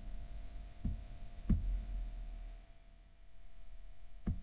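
Three computer mouse clicks, spaced out and the second the sharpest, over a faint steady hum.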